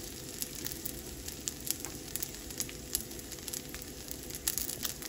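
Dumplings pan-frying in a nonstick frying pan: a steady sizzle with frequent sharp pops and spits.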